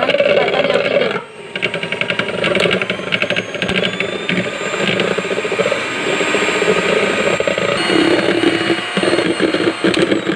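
Electric mixer running steadily, its twin beaters whipping egg whites and lemon juice into a fine foam in a bowl, with a short dip in the motor about a second in.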